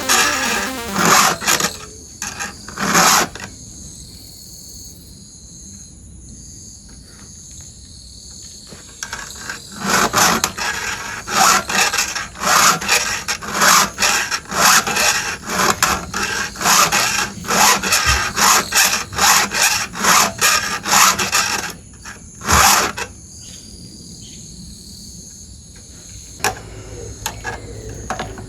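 Round chainsaw file being pushed across the steel cutters of a chainsaw chain to sharpen them. It comes as repeated rasping strokes, roughly two a second, in runs separated by pauses.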